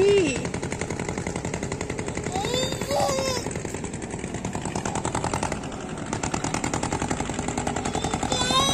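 Single-cylinder diesel engine of a river ferry boat running with a rapid, steady knocking. A person's voice briefly cuts in about three seconds in and again at the end.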